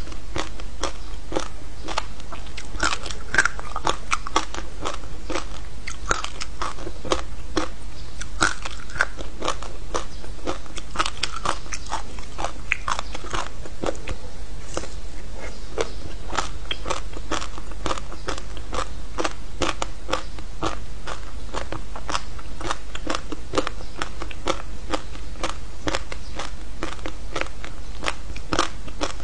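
Close-miked biting and crunching of a frozen slab of passion fruit pulp and seeds: a dense, continuous run of sharp crackles and crunches, several a second, with chewing between bites.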